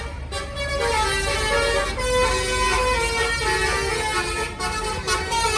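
An intercity bus's Basuri 'telolet' multi-tone horn playing a tune of sustained notes that step up and down in pitch, over the low rumble of the bus's engine.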